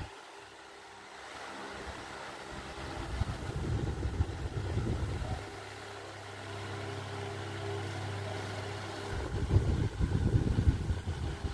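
Fujibin pedestal fan running, its motor humming steadily. The fan's airflow rumbles on the microphone in two gusts, one a few seconds in and another near the end.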